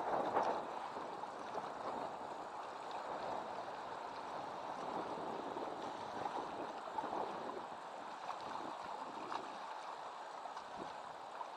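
Steady rush of a fast, choppy river: a continuous wash of water noise with a few faint ticks.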